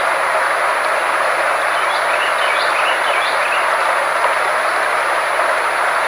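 Therapy sound track of steady, loud rushing noise, centred in the middle of the range, with a thin steady high tone above it. A few short chirps come about two to three seconds in.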